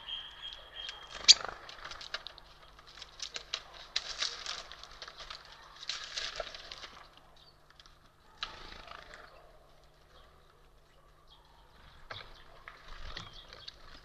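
Eurasian jay and great spotted woodpecker at a wicker-basket seed feeder: quick taps and clicks of beaks and feet among the seeds, with one sharp knock about a second in. About eight seconds in comes a short flurry of wingbeats as the woodpecker lands, and more tapping near the end.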